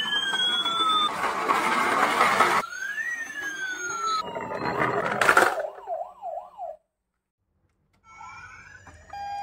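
Toy ambulances' electronic sirens: slow rising-and-falling wails, broken by a loud rushing noise of the toys running along a wooden board, then a quick warbling yelp about six seconds in. The sound cuts out for about a second, then faint electronic toy tones start up.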